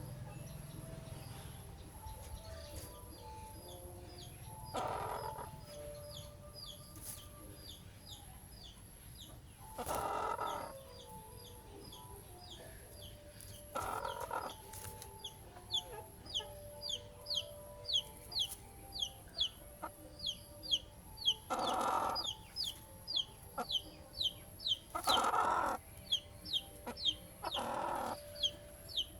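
Birds calling: a rapid series of short, high, downward chirps that grows denser to about three a second, broken by six louder, harsher squawks of under a second each.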